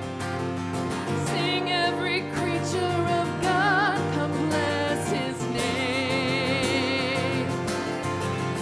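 Live worship band playing with a singer's voice rising over it in held, wavering notes.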